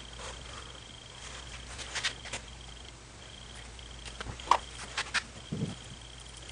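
Light clicks and taps from handling the boards and glue during a wood glue-up, with a soft thump a little before the end. A steady high-pitched tone with short breaks runs behind.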